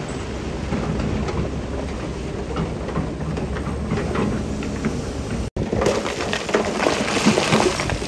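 Heavy diesel earthmoving machinery running with a steady low rumble, while loose stone clatters and crackles. The sound cuts out for an instant about five and a half seconds in, and the stone clatter grows denser afterwards.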